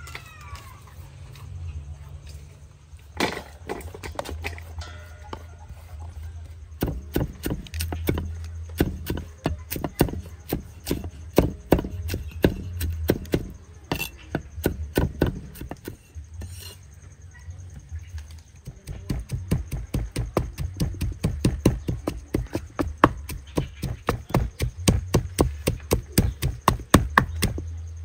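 Cleaver chopping chilies and garlic on a thick wooden chopping block: runs of rapid, even knocks, about five a second, starting a few seconds in, with a short break about two-thirds of the way through.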